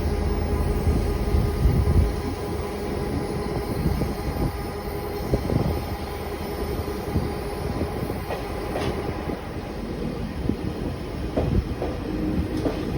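Taiwan Railway EMU3000 electric multiple unit pulling into a station: a steady running rumble with scattered wheel clicks over rail joints. A steady tone comes in near the end.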